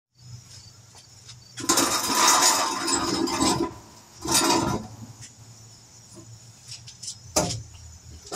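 A metal patio chair scraping as it is pulled out and sat in: a long scrape of about two seconds, then a shorter one, over a steady low hum.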